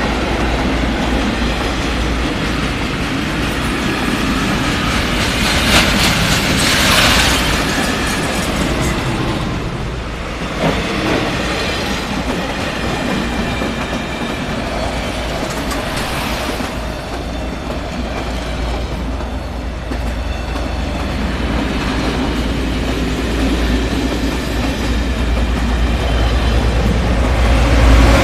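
A track-maintenance work train's hopper wagons and track machines rolling past close by: a steady rumble of steel wheels on the rails with clattering over the joints. The sound grows louder near the end as the diesel locomotive comes by.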